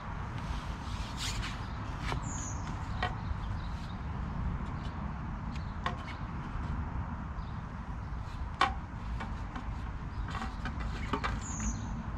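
Scattered light clicks and knocks, like fishing tackle being handled, over a steady low rumble. A short, high, falling chirp sounds twice, near the start and near the end.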